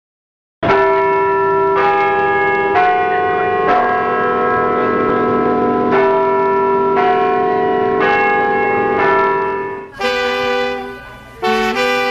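Bells chiming: a slow series of ringing strikes, a new one about every second, each ringing on over the last. About ten seconds in it gives way to music.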